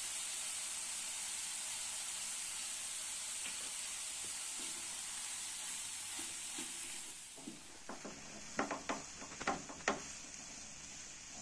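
Grated potato and fenugreek leaves sizzling steadily in a non-stick frying pan, the hiss dying down about seven seconds in. Then a spatula knocks and scrapes against the pan several times as the mixture is stirred.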